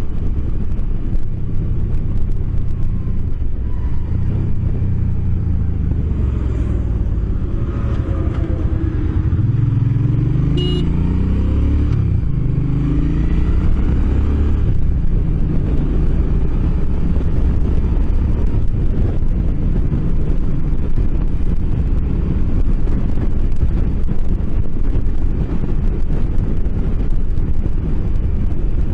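Suzuki C50T Boulevard's V-twin engine under way: the engine pitch rises twice near the middle as the bike accelerates up through the gears, then it cruises steadily, with wind rushing over the microphone.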